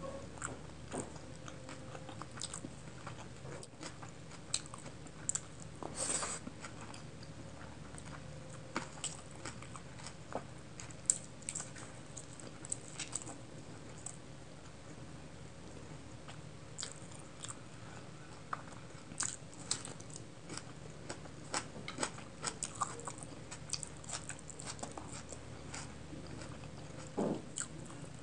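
Close-miked chewing and mouth sounds of someone eating rice, chicken curry and a curried egg with the fingers: irregular sharp clicks and smacks scattered throughout, over a faint steady low hum and hiss.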